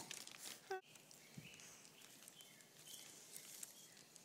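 Near silence: room tone, with a faint click at the start and one brief pitched sound under a second in.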